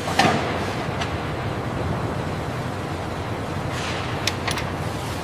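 Steady low industrial hum and hiss of a factory floor. A sharp, ringing metal clank comes just after the start, and a few light metallic clicks come about four seconds in.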